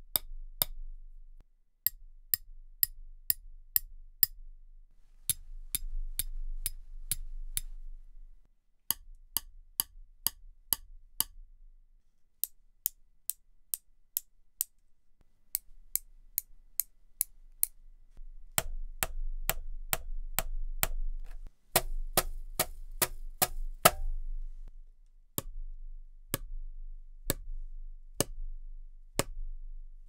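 A run of short, dry, sharp clicks and taps from improvised percussion, struck one hit at a time in groups of about two to three hits a second with brief pauses as the object changes: a large washer tapped on a metal L bracket, then one chopstick struck against another.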